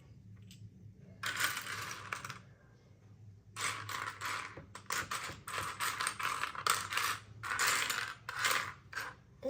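Loose plastic Lego bricks clattering as a hand rummages through a pile of pieces in search of one: a short rattle a little over a second in, then repeated rattling bursts from about three and a half seconds in.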